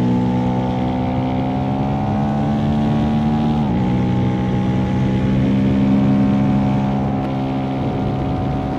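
Single-cylinder engine of a 2025 KTM 390 SMC-R supermoto under way, its intake noise opened up by a Stage 2 DNA air filter. The revs climb slowly, a quick upshift briefly dips the pitch about three and a half seconds in, and it then pulls on fairly steadily.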